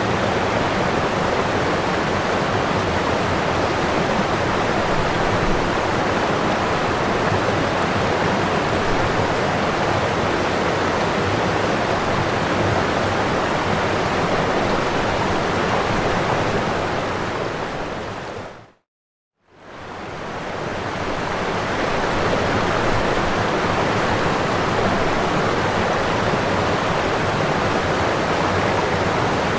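Waterfall rushing in a steady, even roar of falling water. About two-thirds of the way through it fades out to a moment of silence and fades back in.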